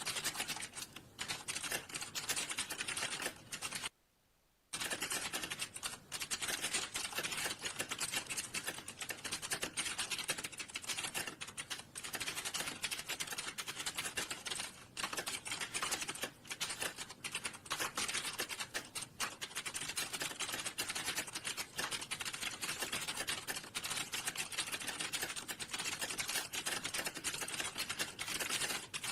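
Fast, continuous typing on a computer keyboard, a dense run of key clicks with a short pause about four seconds in.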